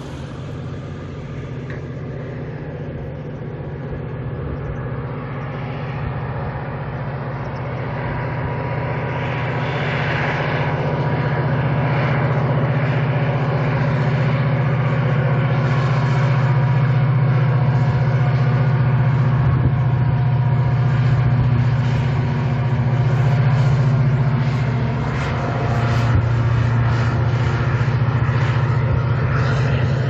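Diesel locomotive hauling a freight train, its engine running with a steady deep drone that grows louder over the first fifteen seconds as it approaches, then holds, with a brief dip in level near the end.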